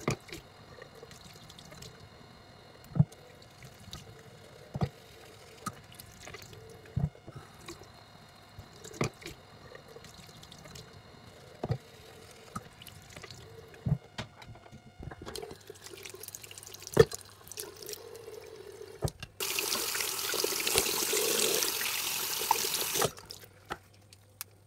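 Makeup brush being washed by hand at a bathroom sink: a few sharp separate clicks while the brush is worked in the palm, then the tap runs for about four seconds near the end to rinse it, and stops abruptly.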